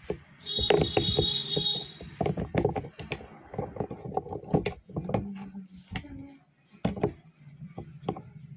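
Repeated sharp clicks and knocks of small hard parts being handled and pried, as a Jio F320 keypad phone is taken apart. A short high-pitched tone sounds for over a second near the start.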